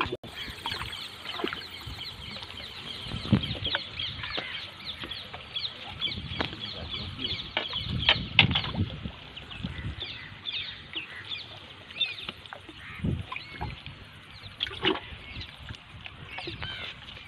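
Birds chirping continuously, many short high chirps several a second, with occasional knocks and rustles close by as a small fish is handled on a fishing line.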